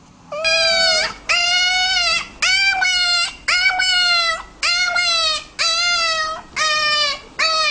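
A dog whining in a run of about eight high, drawn-out whines, roughly one a second.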